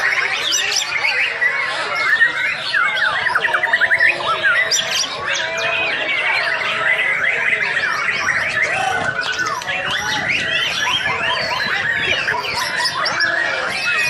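White-rumped shama singing a long, unbroken song: a fast, varied run of rising and falling whistles, trills and sharp clipped notes.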